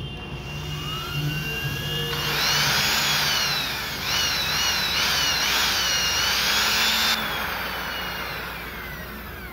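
Brushed universal motor of an opened-up Bosch GHB 220 hammer drill running up on its trigger with a rising whine. Its pitch wavers for a few seconds, then it is cut off sharply about seven seconds in and winds down.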